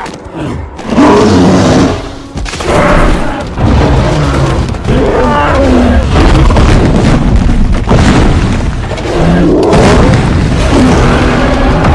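King Kong creature sound effects in a fight: a series of roars and grunts, one every couple of seconds, over heavy booming impacts.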